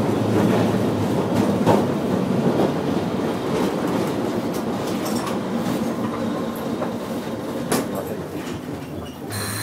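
Running sound of a Tosa Electric Railway 700-series tram with nose-suspended (tsurikake) traction motors: the motor and gear hum and the wheels clicking over rail joints, growing gradually quieter toward the end. A short burst of high noise comes near the end.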